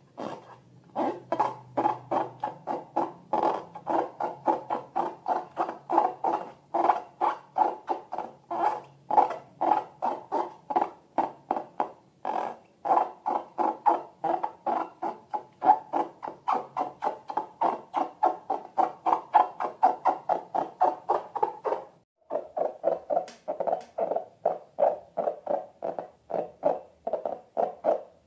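Slime being squeezed and stirred by hand, giving repeated short, wet squelches about three to four times a second, pausing briefly near the end and then going on slightly lower in pitch.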